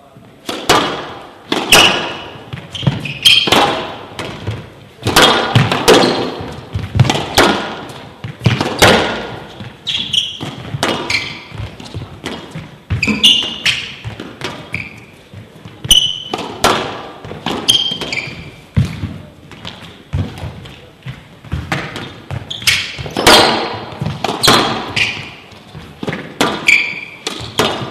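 Squash rally: the ball struck by racquets and thudding off the court walls about once a second, with short high squeaks of shoes on the court floor, echoing in a large hall.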